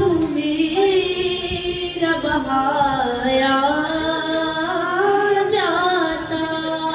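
A woman singing a naat into a microphone, unaccompanied, drawing out long notes that slide and waver in pitch.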